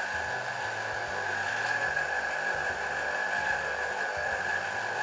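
Electric citrus juicer motor whirring steadily with a high whine while a lemon half is pressed down onto its reamer.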